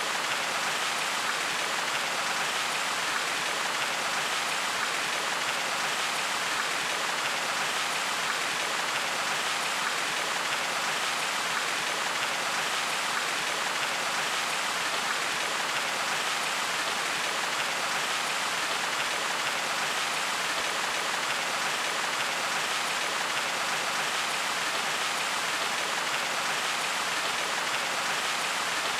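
Steady rush and splash of water from a rock waterfall pouring into a swimming pool.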